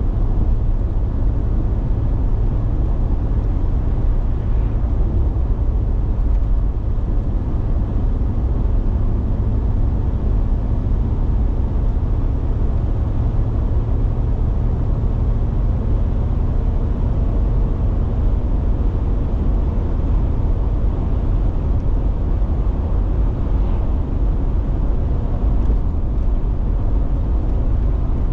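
Steady road and engine rumble heard from inside a moving car's cabin, deep and unchanging.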